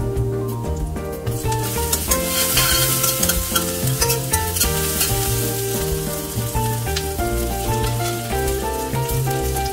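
Food sizzling in hot oil in a pan while being stirred, the sizzle growing louder about a second and a half in, over background instrumental music.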